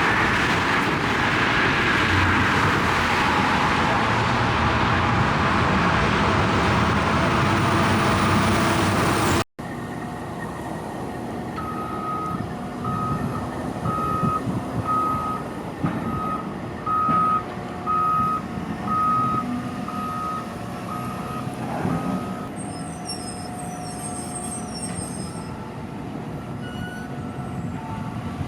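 Heavy construction machinery running loudly. After a sudden cut, a backup alarm beeps steadily, about three beeps every two seconds, over quieter engine noise, and stops about three-quarters of the way through.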